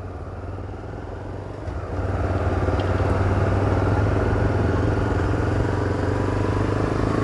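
A vehicle engine running, with road noise, as it pulls away in traffic. It gets louder about two seconds in as the vehicle speeds up.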